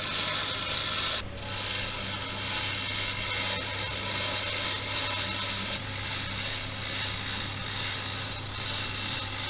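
Manual chain hoist being hauled to lift a heavy cast turret gun mount, its chain rattling and its ratchet clicking steadily, with a brief pause about a second in.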